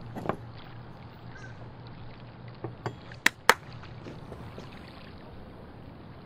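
Steady low background hum with a few sharp clicks about three seconds in, the last two loud and close together.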